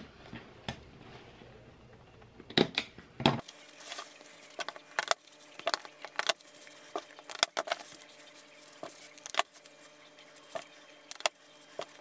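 A hand-squeezed plier stapler fastening a leather seat cover along its edge: a run of sharp metallic clacks, roughly one or two a second, starting about two and a half seconds in.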